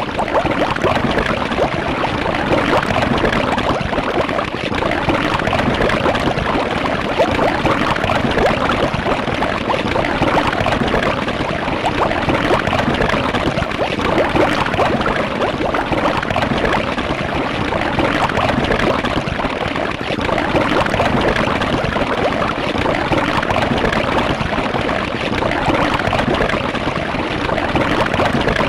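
Cartoon-style juicy bubbling and squirting sound effect: a continuous wet gurgle made of many rapid little pops, going on without a break.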